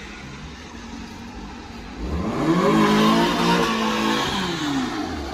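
Mazda MX-5 Miata's four-cylinder engine revving hard as the car accelerates: quiet at first, then about two seconds in the engine note climbs sharply in pitch, holds, and falls away near the end.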